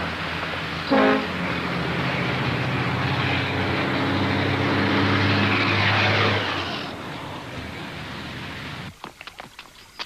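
A vehicle going past: its rumble builds and then falls away about seven seconds in, with a short horn toot about a second in. Quieter after that, with a few sharp clicks near the end.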